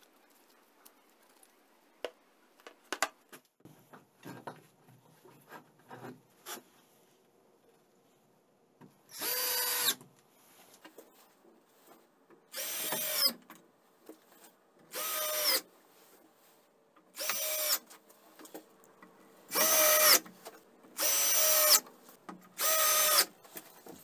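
Cordless drill-driver driving screws through a spring door hinge into a wooden door: seven short runs of the motor, each spinning up and stopping after about a second, the later ones louder. Before them, a few light clicks and knocks of handling.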